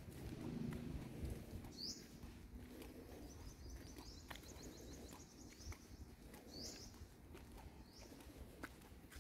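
Small birds chirping faintly: a few short, high, rising chirps spaced seconds apart, and a fast trill of quick notes from about three to five seconds in. A low rumble sits under the first second or so.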